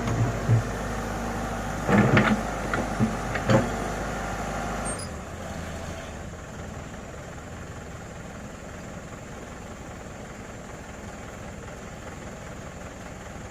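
Komatsu excavator's diesel engine running steadily, with a few sharp knocks in the first four seconds. About five seconds in the engine sound cuts off abruptly and only a quieter, even hiss remains.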